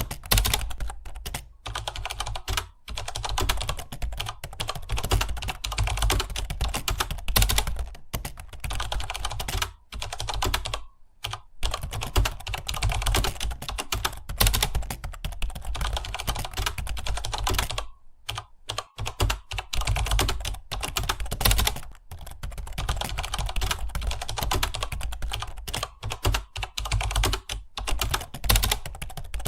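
Fast continuous typing on a computer keyboard, a rapid run of key clicks with brief pauses about eleven and eighteen seconds in.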